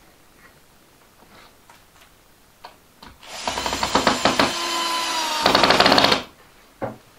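Cordless drill driving a screw into soft wood, without a pilot hole, to fasten a wooden loom frame: the motor whines for about three seconds, sagging in pitch midway as the screw bites, with a fast rattle before it stops. Faint taps of handling come before it.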